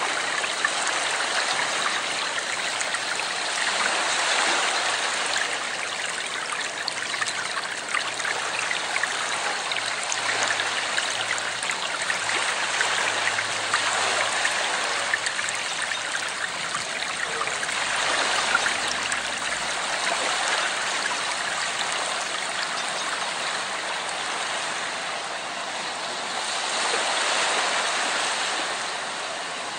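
Running water, a steady rushing and trickling noise that swells slightly near the end.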